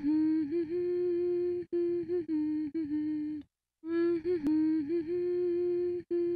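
A woman humming a gentle tune in held notes: the same short melodic phrase twice, with a brief pause between them.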